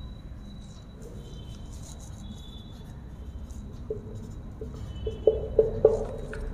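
Marker pen writing on a whiteboard: faint strokes, then a few short squeaks and taps in the last couple of seconds as letters and marks are put down.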